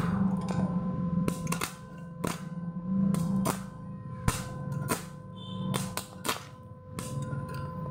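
Stick-welding electrode tapped against a steel clamp, striking brief arcs that go off as about a dozen sharp, irregular crackling snaps, the loudest about four seconds in. A steady hum runs underneath.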